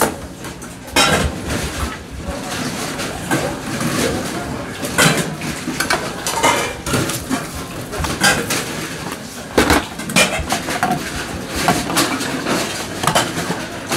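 Stainless steel bowls clinking and clattering on metal trays as they are set down and handled, in a run of irregular knocks over a steady background din.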